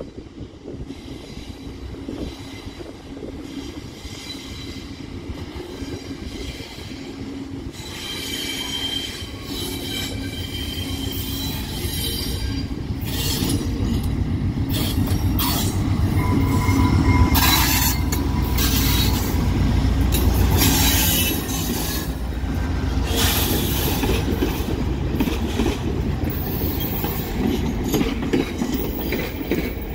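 VIA Rail passenger train led by a GE P42DC diesel locomotive approaching and passing close by. Engine and wheel rumble builds to its loudest as the locomotive goes by a little past halfway, then the stainless-steel coaches roll past with high-pitched wheel squeal and clatter over the rail.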